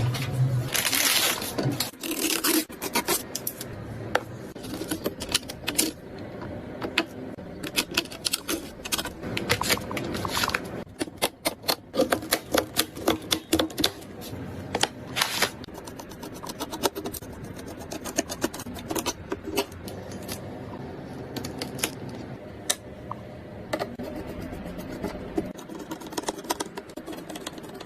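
Irregular clicks, taps and scrapes of computer hardware being handled and fitted together by hand during a PC build, with bunches of rapid clicking.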